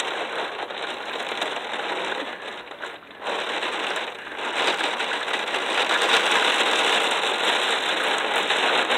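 Heavy rain beating against a window pane, a dense steady patter. It drops away briefly about three seconds in, then grows louder through the second half.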